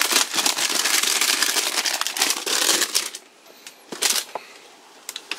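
Thin plastic drink bottles crinkling and rustling as a hand grips and shifts them, for about three seconds, then a brief rustle about four seconds in.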